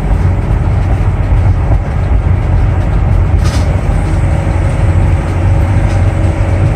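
Steady, loud low rumble of a vehicle driving at road speed, engine and tyre noise heard from inside the cab.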